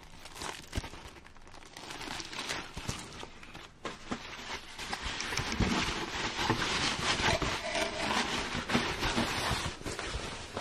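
Plastic bag and foam packing sheet rustling and crinkling as they are handled, louder from about halfway through.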